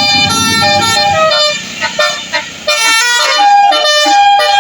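Bus 'telolet' multi-tone air horn playing a tune, its notes stepping up and down in pitch. It breaks off briefly about two seconds in and then carries on loudly.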